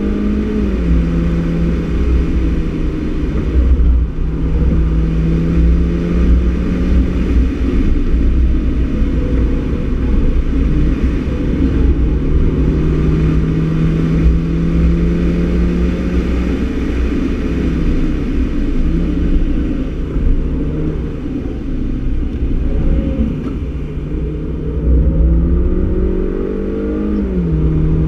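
Mini Cooper S engine with a Works exhaust, heard from inside the cabin, pulling hard at track speed over loud road and tyre rumble. Its pitch drops at a gear change just after the start, holds fairly steady, then rises and drops again at another gear change shortly before the end.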